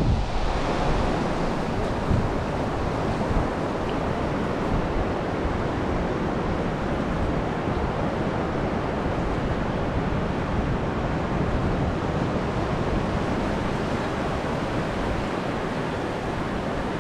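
Shallow surf washing up and over wet sand at the water's edge, a steady rushing hiss, with some wind on the microphone.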